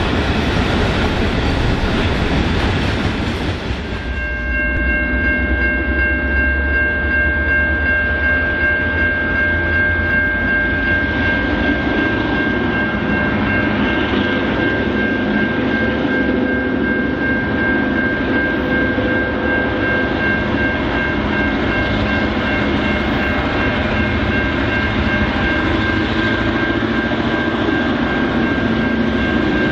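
For the first few seconds, freight wagons roll past with a heavy low rumble. Then a Victorian G Class EMD diesel locomotive approaches hauling a long train, its engine working hard with a steady high whine over its lower running sound.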